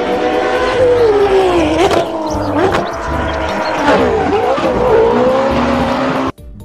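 Racing car engines revving hard at high rpm, the pitch dropping and climbing sharply several times as they shift and rev, then cutting off suddenly near the end.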